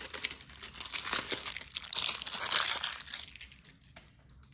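Packaging crinkling and crumpling as parts are unwrapped, a dense crackle of small clicks that dies down after about three seconds.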